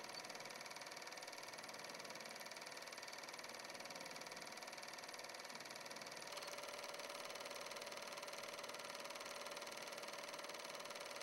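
Steady whirring of a small machine running, its tone shifting slightly about six seconds in.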